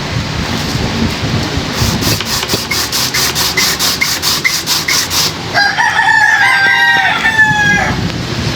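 A rooster crowing once, a long wavering call of about two and a half seconds, a little past halfway in. Before it comes a quick run of high rasping ticks, about six a second.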